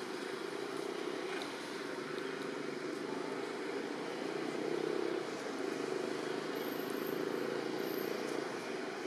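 Steady low rumble of distant traffic, even throughout, with no distinct calls or knocks over it.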